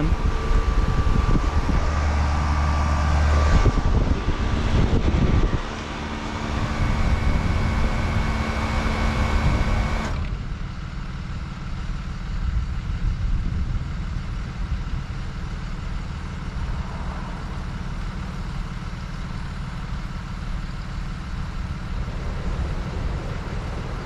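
1988 Carrier Round One heat pump outdoor unit running in cooling mode, its Carlyle reciprocating compressor and condenser fan humming steadily. About ten seconds in the unit shuts off and the sound drops abruptly, leaving a quieter low rumble.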